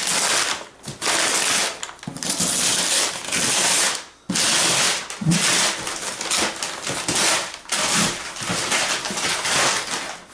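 Brown kraft paper wrapping being torn and crumpled off a cardboard box, in a run of loud ripping and rustling bursts with short pauses, the longest about four seconds in.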